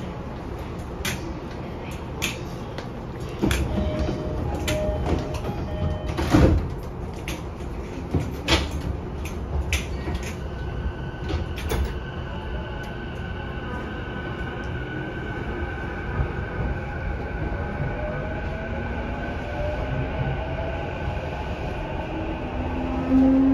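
E233 series 7000 subseries electric train: its doors slide shut with a loud thump about six seconds in. From about halfway its Mitsubishi IGBT VVVF inverter whines in several tones that rise steadily in pitch as the train starts pulling away.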